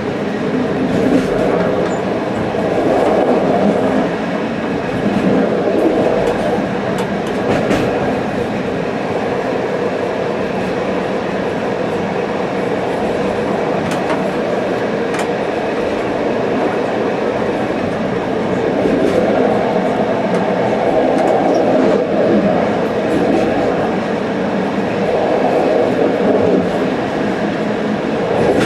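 Passenger train running along the track: a steady rolling rumble of wheels on rail that swells and eases slightly, with a few faint clicks.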